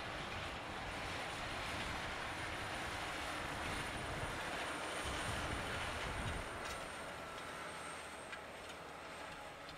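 Degelman Pro-Till disc cultivator pulled by a tractor through dry soil: a steady rumble and hiss of the discs cutting the ground and the tractor running.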